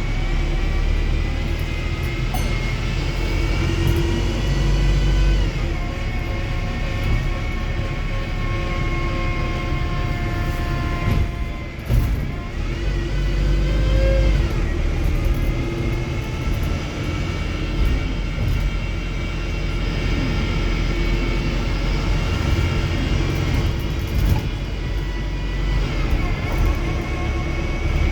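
Wrightbus StreetDeck HEV hybrid double-decker bus driving, with its Mercedes-Benz OM934 diesel engine giving a heavy low rumble and whining drivetrain tones that rise and fall as the bus speeds up and slows, dipping briefly about twelve seconds in before climbing again.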